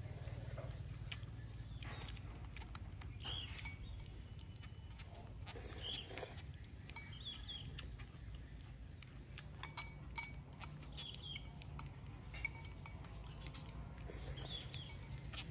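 Quiet eating at a table: a few light clicks, as of chopsticks and a spoon against a bowl, with short high chirps every few seconds over a low steady hum.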